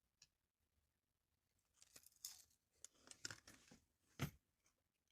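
Mostly near silence, broken about two seconds in by a short run of faint crinkling, crackling and clicking noises, ending in one sharper knock near the end.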